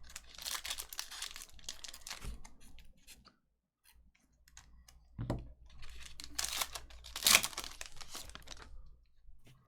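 Trading cards and their packaging being handled: quick flicks and clicks of cards being thumbed through, with rustling and crinkling. The sound comes in two spells with a short quiet gap between them.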